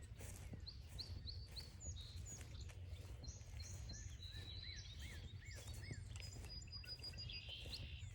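Several songbirds calling in woodland. Quick high chirps come about a second in, a run of four arched notes follows in the middle, and thin whistled notes come near the end, all over a faint steady low rumble.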